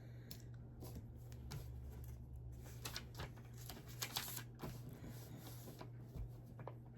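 Small plastic Lego pieces clicking and rustling as hands sort through them and the plastic parts bags: a run of light, irregular clicks and crinkles.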